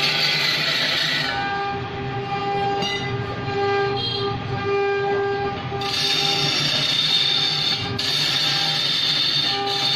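Large wood lathe spinning a thick log while a turning tool cuts it: a steady, squealing hum of several held tones with a hiss of cutting that drops away for a few seconds in the middle and returns.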